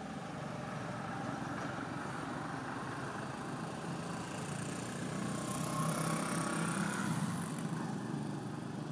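Motor vehicle engine running on a nearby road, a steady rumble that swells louder from about five to seven seconds in as a vehicle passes.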